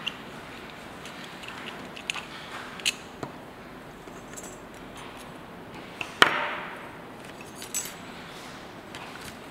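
Small metal clicks and clinks as a double-edge safety razor is unscrewed and taken apart by hand, its chrome head parts tapping together and against the table. One louder clack comes a little past the middle, with a short ring after it.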